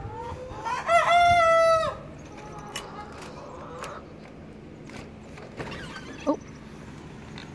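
A rooster crows once; the crow ends in a long held note about two seconds in. A few light clicks of a door latch follow, with a short sharp sound a little after six seconds.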